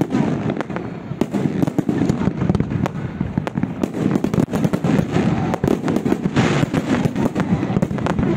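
Fireworks barrage: many aerial shells bursting at once, a dense, unbroken run of overlapping bangs.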